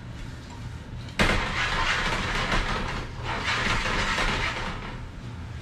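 Onions and garlic sautéing in oil in a pan, the sizzle flaring up suddenly about a second in and again just after the middle, then easing off.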